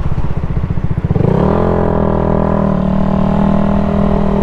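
Yamaha YZF-R125's single-cylinder engine with a low, pulsing note. About a second in it rises in pitch as the bike accelerates, then holds a steady higher note.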